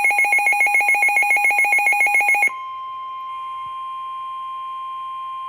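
Midland WR-400/WR-300 NOAA weather radios sounding a flash flood warning alert: a loud, rapid electronic beeping alarm, several pulses a second, for about two and a half seconds, then a steady single-pitch warning alarm tone that cuts off abruptly at the end.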